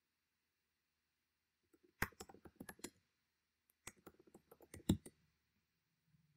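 Computer keyboard typing: two short runs of keystrokes, the first starting about two seconds in and the second about four seconds in.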